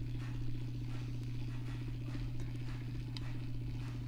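Steady hum of a small electric rod-turning motor slowly rotating a fishing rod blank, with faint regular ticks over it.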